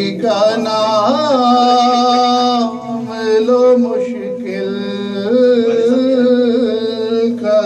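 A man chanting devotional Urdu verse in a slow, melodic style, holding long notes. He sings two long phrases with a short break about three seconds in.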